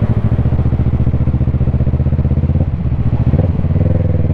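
Motorcycle engine running steadily under way, with an even pulsing note. About two-thirds of the way through the note dips and changes, then steadies again.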